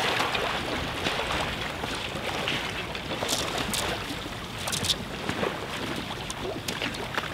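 Mute swans fighting in the water: irregular splashing and wing beats churning the surface.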